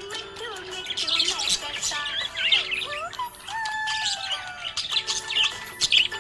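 Budgies chirping and warbling in quick, busy strokes over background music with long held and sliding notes.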